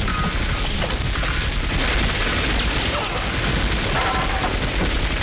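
Sustained gunfire from a film shoot-out: rapid, overlapping shots and booms with no break.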